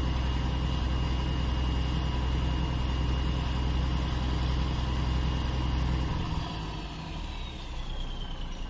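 Fishing boat engine running steadily with a deep hum and a thin high whine. About six seconds in the engine note drops away and the whine falls in pitch, as if the engine is throttled back.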